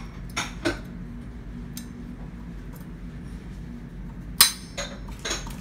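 Sharp metal clinks of an Allen key against chainring bolts and the crank spider as the bolts are worked loose or in: about half a dozen separate clicks, the loudest about four and a half seconds in, over a steady low hum.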